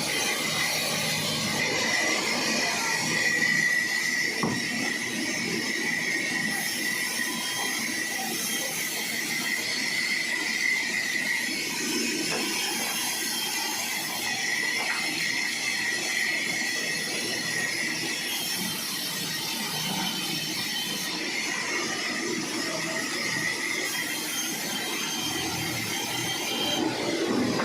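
Sawmill running, a steady machine noise with a high whine held throughout, typical of a saw blade cutting through a log.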